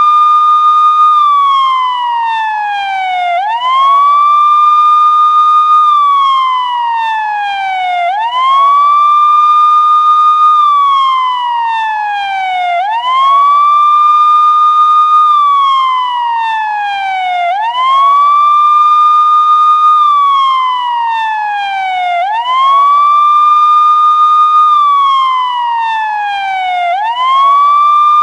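Police car siren sounding in wail mode: a single tone that climbs quickly, holds at the top for a moment, then glides slowly back down, over and over about every four and a half seconds.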